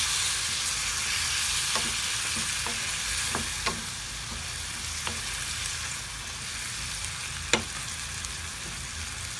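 Chicken in tomato sauce sizzling in a frying pan, a steady hiss that eases slightly partway through. A few sharp clicks of a utensil against the pan are heard, the loudest about seven and a half seconds in.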